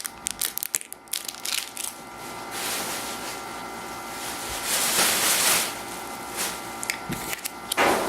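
Plastic candy packaging being handled, with quick crackles and then a longer stretch of crinkling and rustling that peaks around the middle.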